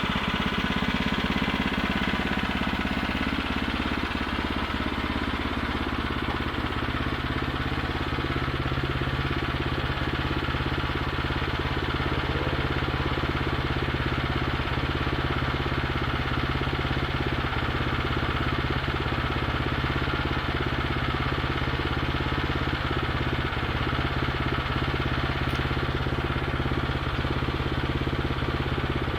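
Gasoline engine of a portable bandsaw sawmill running steadily at a constant speed.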